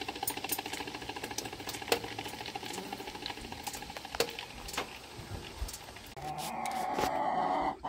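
Hen clucking in a fast, even run, then a louder, drawn-out call over the last second and a half. Hens make this kind of noise when brooding or laying.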